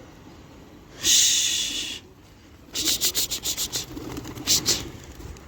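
A one-second rushing hiss about a second in, then a run of quick flapping claps as domestic pigeons beat their wings taking off into flight.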